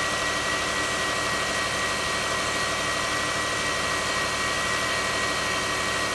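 Lexus RX300's V6 engine running at a steady idle with a constant high-pitched whine over the engine hum, which the owner takes for an alternator whine.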